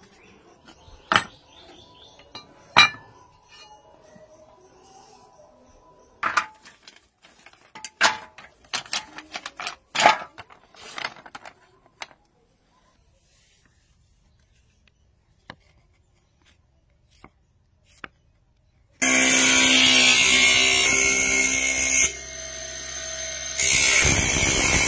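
Flat pieces of animal horn knocking and clattering as they are handled, a few sharp knocks at a time. After a quiet spell, an electric grinding wheel runs loud with a hiss and a motor hum as it grinds a piece of horn; it eases off briefly and comes back.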